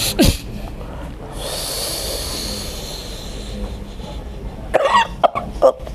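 A person coughing and gagging in short, harsh bursts, with a long breathy hiss of air in between lasting about two seconds. The bursts come in a cluster near the end.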